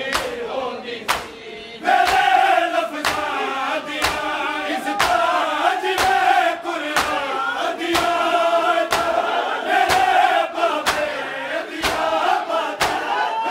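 A crowd of men chanting a noha in unison behind a lead reciter, with sharp chest-beating (matam) slaps about once a second. The chanting grows louder about two seconds in.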